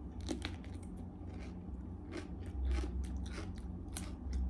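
Close biting and chewing of a crunchy raw green vegetable: a string of crisp crunches.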